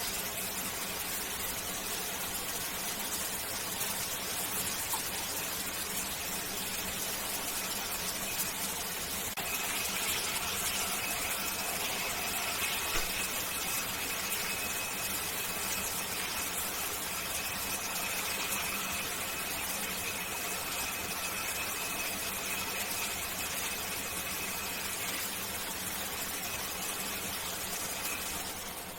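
Shower spray running steadily. A high, steady squealing whistle comes in about a third of the way through and holds until near the end.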